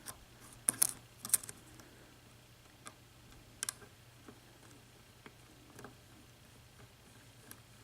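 Faint clicks and ticks of a lock pick and tension tool working the pin stack inside a 6-pin Schlage lock: a few sharper clicks a little under a second in, then scattered light ticks. The picker is trying to set pin 1, a hard pin to set among spool and serrated security pins.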